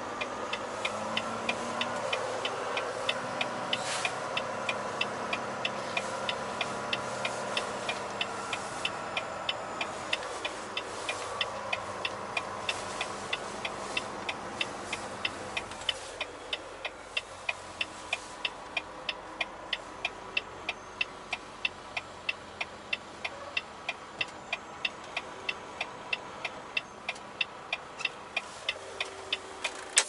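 Truck's indicator flasher clicking steadily about twice a second inside the cab of a Volvo VNL860, over the engine running as the truck moves slowly.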